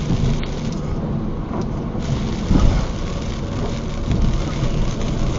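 Steady rushing noise of storm wind and rain, heaviest in the low end, with a brief louder swell about two and a half seconds in.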